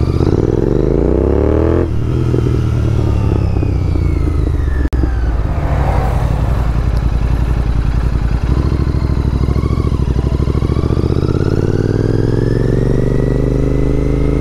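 Motorcycle engine under acceleration: its pitch climbs quickly for about two seconds, drops at a gear change, runs steadily, then rises again more slowly through the second half.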